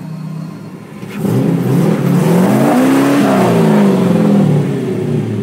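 Turbocharged Hemi V8 in a Ford F100 pickup running low, then revving up about a second in, its pitch rising to a peak near the middle and falling back as the throttle comes off.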